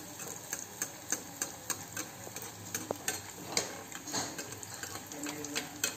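Batata vadas, potato balls coated in gram-flour batter, deep-frying in hot oil: a steady sizzle with irregular crackles and pops as the first side fries.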